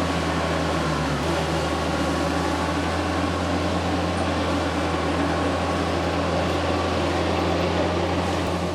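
Tractor diesel engine running at a steady speed, a constant low drone with a dense mechanical hiss over it.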